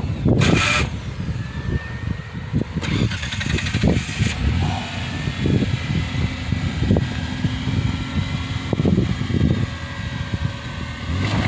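Ford Explorer's V6 engine running with an uneven low rumble as the truck crawls along a dirt trail, with a short loud burst of noise about half a second in.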